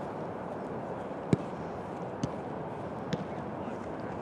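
Footballs being kicked during training: three sharp thuds, roughly a second apart, the first the loudest, over a steady open-air hiss.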